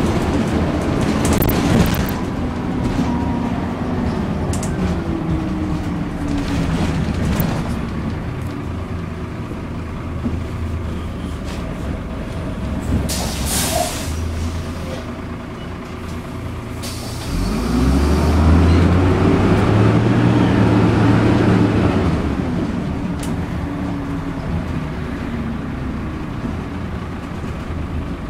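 Dennis Dart SLF single-deck bus with an East Lancs body, heard from inside the saloon: the diesel engine and drivetrain fall in pitch as it slows. A short hiss of air comes a little before halfway, and about two-thirds through the engine rises loud with climbing pitch as the bus pulls away, then eases off.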